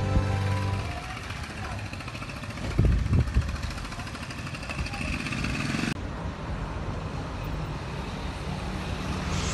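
Street traffic noise, with the low rumble of a motor vehicle passing about three seconds in. Background music stops within the first second.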